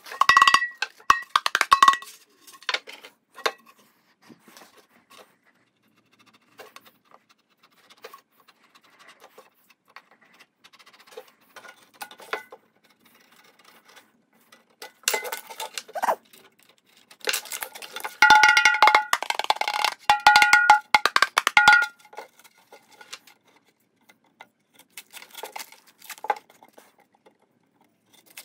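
Two loud stretches of metallic ringing and jingling as the pandeiro is handled, one in the first two seconds and one lasting several seconds past the middle. Between them come faint scratching and clicking as a blade works the drum's new skin at the rim.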